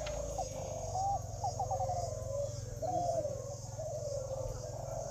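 A chorus of caged spotted doves (derkuku) cooing, many short rounded coos overlapping one another without a break. The coos bunch up and grow louder about one second and three seconds in.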